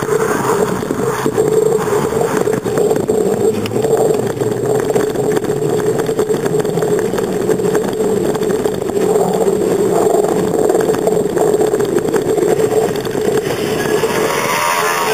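Riding noise from a bicycle-mounted camera: wind and rolling rattle with a steady hum. Near the end a motor scooter and a quad bike pass close by.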